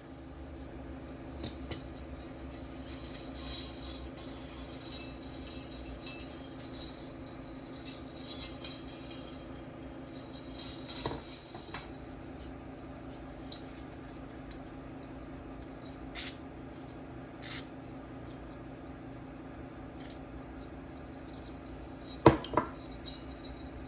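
Small metal toaster parts being handled on a bench over a steady low hum: several seconds of irregular scraping and rubbing, then a couple of light clicks and one sharp metallic clink near the end.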